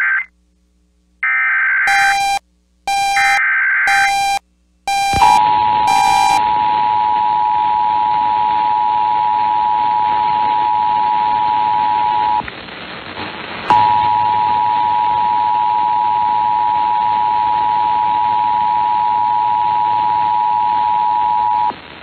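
Emergency Alert System activation: three short screechy SAME data header bursts, with short buzzy beeps mixed in, then the steady two-tone EAS attention signal. The tone breaks off for about a second partway through, resumes, and cuts off just before the end.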